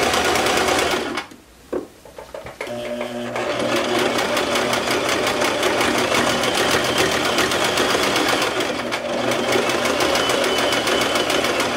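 Singer domestic sewing machine sewing a stretch-stitch hem through velour, the needle going in a fast, even rhythm. It stops for about a second and a half soon after the start, with a single click in the pause, then starts up again and runs steadily.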